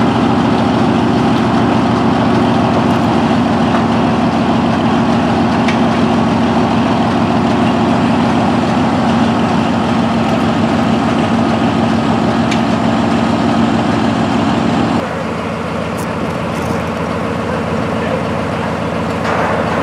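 Northwest 80D crawler crane's engine idling steadily, an even low drone; about 15 seconds in it drops a little in level and loses some of its low hum.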